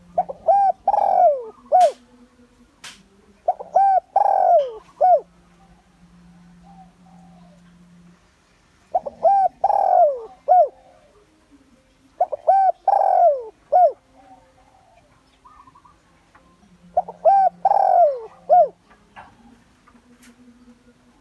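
Spotted dove cooing: five phrases a few seconds apart, each a few short coos with a longer falling note near the end. It is the territorial call used as a decoy to draw wild males in to fight.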